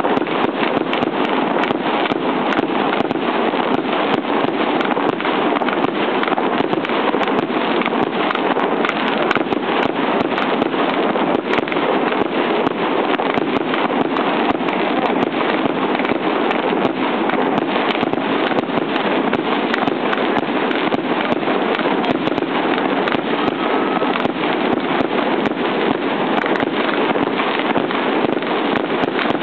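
Fireworks display: a continuous barrage of launches and bursts, with dense sharp cracks and bangs following one another without a break.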